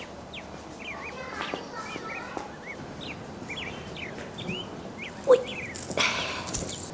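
Small birds chirping in short, quick calls again and again, with a single sharp thump about five seconds in and a brief rustle just after.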